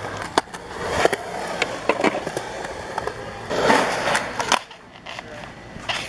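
Skateboard rolling on concrete ramps, the wheels rumbling with sharp clacks and knocks from the board. A louder rush of rolling noise comes about three and a half seconds in.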